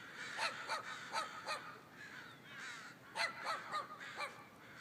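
A large flock of crows cawing from a tree: two quick runs of about four caws each, with fainter calls of other birds behind.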